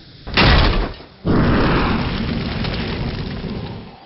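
Cinematic sound effects for an animated logo: a short burst of noise, then, about a second in, a sudden thunder-like boom whose rumble slowly fades out.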